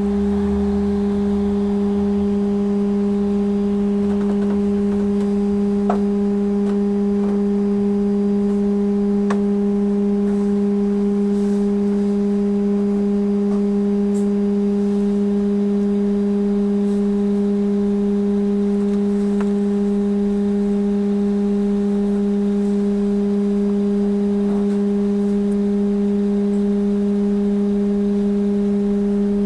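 Trolleybus at a standstill, its electrical equipment giving a steady hum with a few higher overtones. A low rumble of passing traffic is heard in the first couple of seconds.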